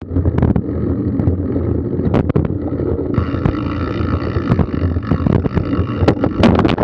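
Mountain bike ridden fast over a bumpy forest dirt trail: a steady rumble of tyres and rushing air, with rattles and knocks from the bike and a high buzz for a few seconds in the middle. Near the end the bike crashes, with a burst of loud impacts.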